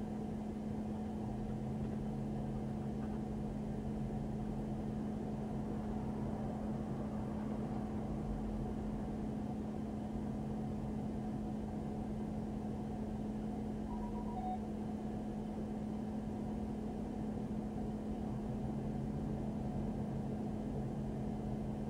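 Steady low hum of an idling patrol car, heard through the dashcam mounted inside it.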